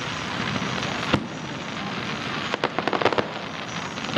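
Aerial fireworks bursting. A single sharp bang comes about a second in, a quick cluster of crackling pops follows about two and a half seconds in, and another bang comes at the very end.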